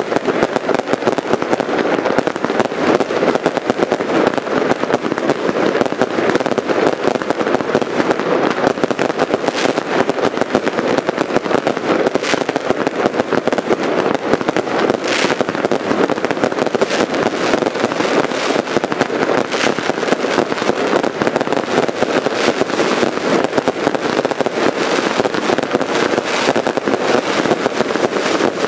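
Many fireworks going off at once: overlapping bangs and crackling bursts run together into an unbroken barrage, with a few louder single bangs standing out around the middle.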